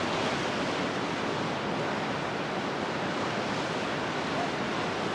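Sea waves breaking and washing over a flat rocky shore: a steady, even rush of surf.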